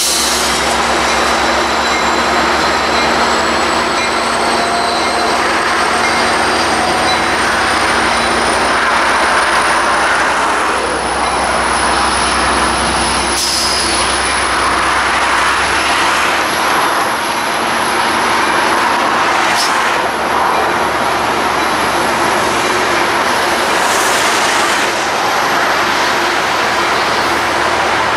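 Metrolink diesel-hauled commuter train rolling slowly past. A thin, high wheel squeal rises gradually in pitch over a steady rumble and hum, with a few short sharp clicks.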